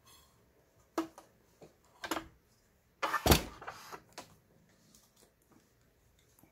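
A few sharp clicks and knocks as a household sewing machine is handled, the loudest a heavy thump about three seconds in; the motor is not running.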